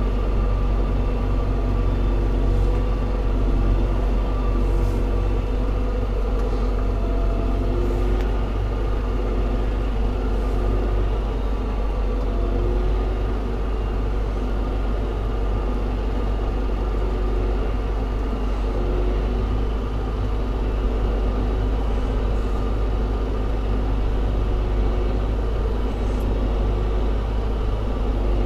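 Fendt tractor's diesel engine running steadily under load, heard from inside the cab, with a deep constant drone and a few faint knocks and rattles from the rough track.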